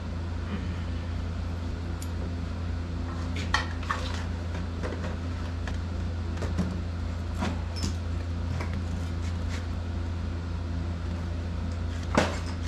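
Scattered metal clinks and knocks of engine parts and hand tools being handled over a steady low hum, with a heavier clunk near the end as a metal part is lifted off the back of the engine.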